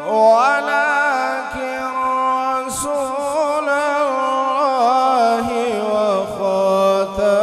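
A male Qur'an reciter chanting a verse over loudspeakers in long, ornamented melodic phrases, his held notes wavering and sliding in pitch.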